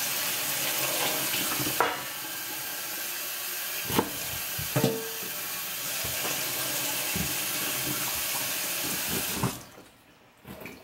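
Kitchen tap running into a sink while potatoes are rinsed under it, with a few knocks about two, four and five seconds in. The water shuts off suddenly about nine and a half seconds in.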